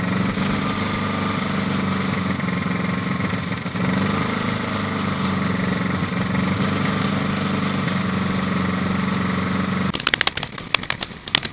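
Portable generator engine running at a steady pitch. About ten seconds in, the hum gives way to a quick run of sharp clicks from a pneumatic stapler firing staples through wire mesh into wood.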